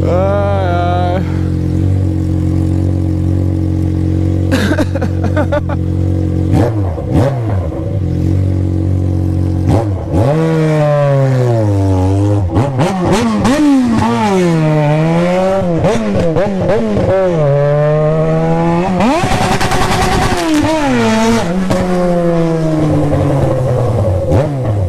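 Yamaha FZ6's 600 cc inline-four engine idling steadily, then revved repeatedly from about ten seconds in, the pitch rising and falling with each blip. A higher, louder rev comes near two-thirds of the way through before it drops back to idle.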